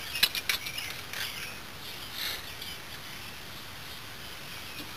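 Light metallic clicks and scrapes as the cylinder and cam timing chain of a Yamaha Badger 80 engine are handled and guided into place, with a quick cluster of clicks in the first half second and a few softer clicks and squeaks over the next two seconds.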